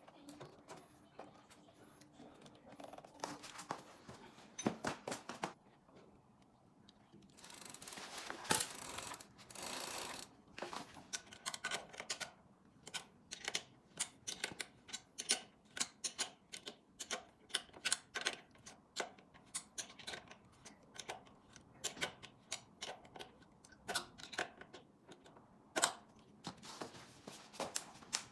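Pedals being fitted to an electric fat-tyre bike's crank arms: quick, irregular metallic clicks and ticks, about two or three a second in the second half, with a few seconds of rustling about a third of the way in.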